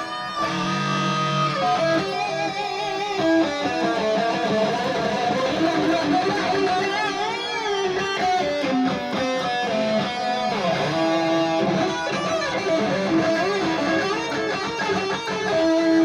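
Electric guitar played through a Valeton GP-200 modeling processor and two Headrush 108 active monitors, picked up in the room: a melodic lead line of held single notes with bends and vibrato.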